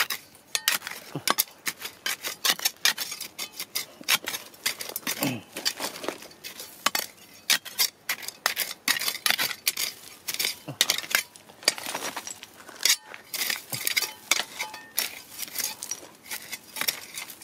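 A small hand digging tool scraping and striking dry, stony soil and rocks. It makes a quick, irregular run of clinks, scrapes and small knocks, several a second.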